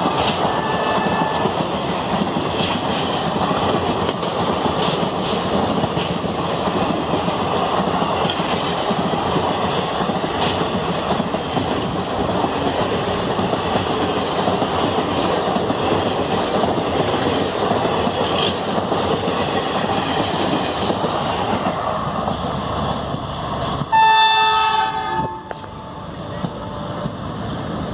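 Passenger train coaches rushing past at about 72 km/h, a steady roar of wheels on rail. Near the end a train horn blows loudly for about a second and a half, and the rushing noise falls away.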